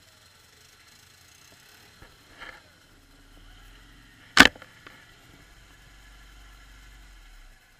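ATV engine running low and faint while riding through a muddy track, with a single sharp knock about four and a half seconds in, the loudest sound.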